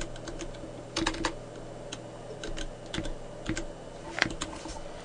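Typing on a computer keyboard: irregular, separate keystrokes, some harder than others, over a low steady hum.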